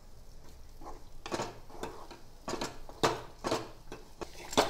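Spatula scraping and knocking against a non-stick kadai as ground sweet corn paste is stirred while it fries in ghee, in irregular strokes, the loudest near the end.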